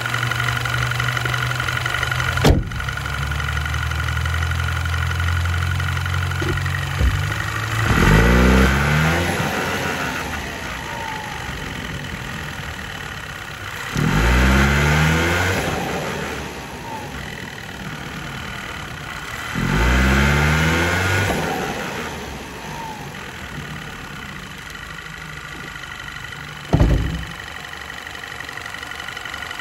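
2011 Audi Q5's 2.0T turbocharged direct-injected four-cylinder engine, heard from under the hood, making three short boost pulls: the revs climb sharply about eight, fourteen and twenty seconds in, then ease off each time, with the injectors ticking. With the recirculation valve connected there is no compressor surge: this is how the engine is supposed to sound. Two sharp knocks, one a couple of seconds in and one near the end.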